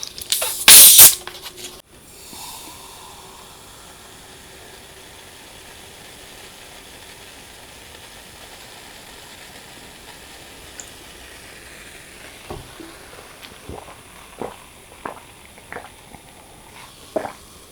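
Close-miked eating sounds: one loud, short burst of noise about a second in, then a steady faint hiss, with scattered soft clicks of chewing from about twelve seconds on.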